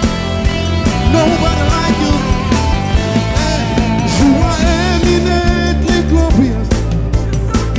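Upbeat praise band music: steady drum beat and heavy bass under a wavering, bending lead melody.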